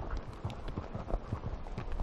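Hoofbeats of horses walking on a dirt trail: irregular soft thuds and clicks.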